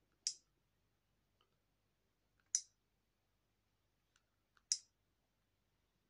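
Three short, sharp clicks about two seconds apart from an Alcatel OT-880 touchscreen phone as its menus are tapped through. Each click has a brief tail, and fainter ticks come in between.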